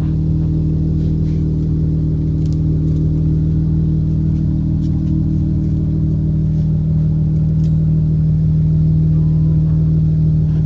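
Chrysler 3.6L Pentastar V6 engine running at a steady speed, a continuous even hum, plausibly after the ticking noise has been fixed.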